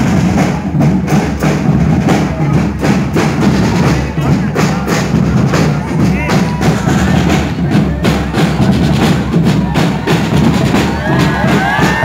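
School marching band drum section playing a steady marching beat on bass drums and snare drums, with some high sliding tones near the end.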